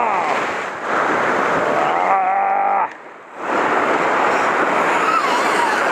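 Ocean surf washing steadily, dropping away briefly about three seconds in. A short humming tone sounds just before the drop.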